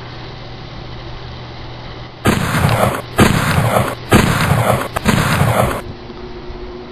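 Four gunshot sound effects dubbed onto the track, about one a second, each a sudden loud bang with a short noisy tail that cuts off abruptly.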